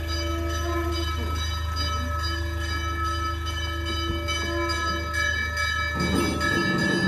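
Temple bells ringing without a break, several bell tones held together over a steady low hum.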